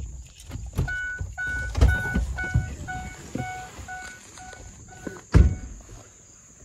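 A vehicle's warning chime dinging about three times a second while the driver's door stands open, then the door slams shut just after the chiming stops; the slam is the loudest sound.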